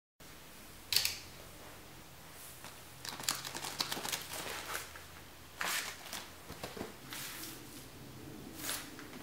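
Vinyl records in plastic outer sleeves being flipped through in a crate: a series of short plastic rustles and soft clicks as the sleeves brush and knock together, then a record being slid out of its sleeve near the end.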